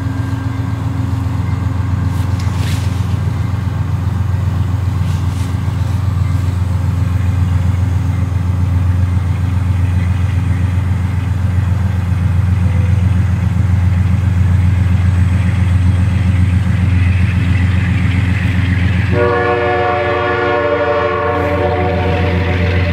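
Train of bilevel gallery cars rolling slowly past behind Amtrak's B32-8WH diesel locomotive, a steady low rumble. About 19 seconds in, the locomotive's multi-tone air horn starts a long chord blast.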